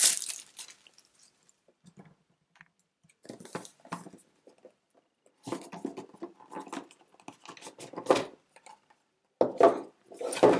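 Cardboard board-game box being handled and its lid lifted off: a burst of plastic shrink-wrap crinkling at the very start, then scattered rustles, scuffs and light taps of card and paper.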